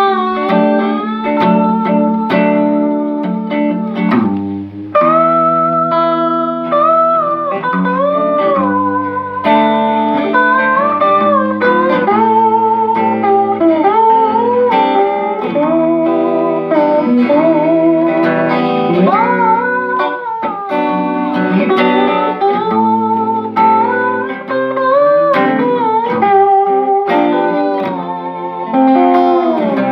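Two guitars jamming a blues: an electric and an acoustic-electric guitar, with bent, sustained lead notes and vibrato over strummed chords.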